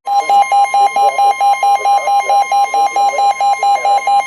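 NOAA Weather Radio alert tone, starting abruptly as the broadcast voice is cut off: a steady high tone together with a lower tone that pulses about four times a second, signalling that a warning message follows.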